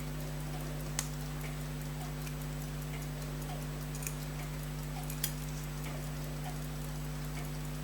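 Small light clicks of tweezers and tools handling pocket-watch parts, scattered and uneven, with three sharper clicks about one, four and five seconds in, over a steady low electrical hum.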